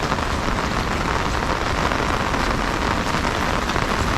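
Heavy rain falling steadily: a dense, even patter of countless drops on the ground and surfaces.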